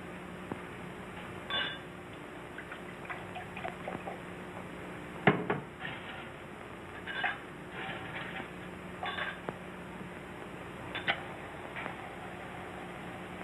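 Glasses and a bottle clinking and knocking as drinks are poured and mixed, with one louder knock about five seconds in, over the steady hum and hiss of an early sound-film track.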